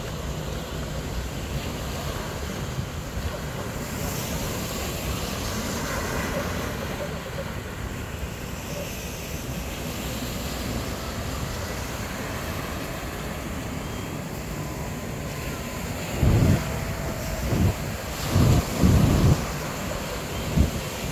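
Wind rushing over the microphone with waves washing onto the shore. Near the end several loud, low gusts buffet the microphone.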